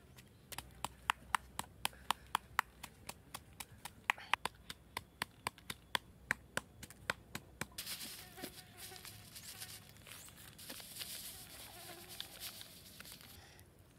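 Wooden pestle pounding chilies and garlic in a stone mortar, sharp knocks at about four a second. The knocking stops about 8 s in, and a fine grainy hiss follows as salt is poured into the mortar.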